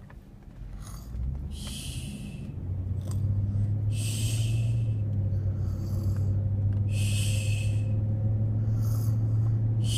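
Pretend snoring: short, breathy, hissing snores repeated every two to three seconds. A steady low hum comes in about three seconds in and continues underneath.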